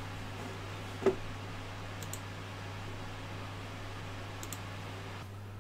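Steady room hum with a few small clicks from a hand tool and screws being worked into the 3D printer's frame parts. The sharpest click comes about a second in, with two fainter ticks later.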